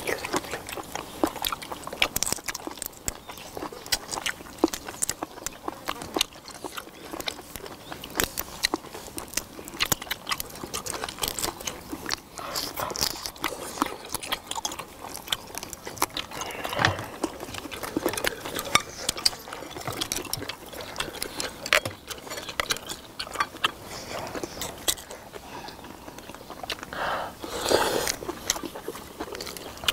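People eating seafood stew: chewing and smacking on shellfish and octopus, with many small irregular clicks of chopsticks and shells.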